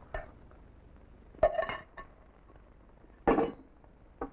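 Metal spoon clinking in a tin cup as someone eats: a few sharp clinks with a short metallic ring, the loudest about a second and a half in and again just past three seconds.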